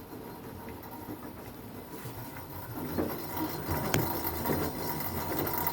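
Altus washing machine running and getting louder, with irregular knocks setting in about three seconds in and one sharp knock just after.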